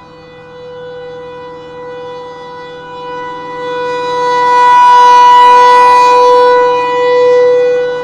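Federal Signal Thunderbolt 1000 outdoor warning siren sounding a steady tone during a test. Its rotating horn sweeps past, so the sound swells to loudest around the middle and drops off near the end.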